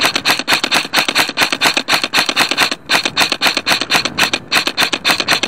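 A rapid, evenly spaced series of sharp clicks, about seven a second, with a short break just under three seconds in.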